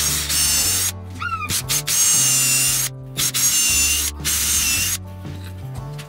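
Cordless drill running in four short bursts of about a second each with a steady motor whine, drilling into plywood and driving a screw.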